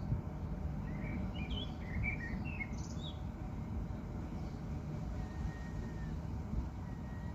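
Steady low outdoor rumble with a quick flurry of bird chirps between about one and three seconds in, then a faint thin, drawn-out high tone twice in the later part.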